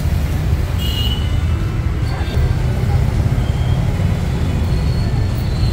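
Steady low rumble of busy street traffic.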